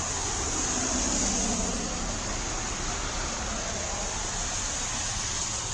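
Traffic passing on a rain-wet street: a steady hiss of tyres on wet pavement, with a faint engine note sinking slowly in pitch in the first couple of seconds.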